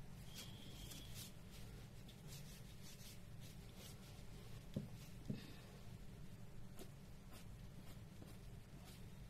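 Pencil sketching on paper: faint, scratchy strokes one after another, with two soft knocks about five seconds in.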